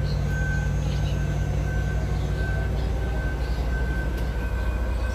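Volvo D13 inline-six turbodiesel truck engine idling steadily, with an intermittent high-pitched beep sounding on and off over it.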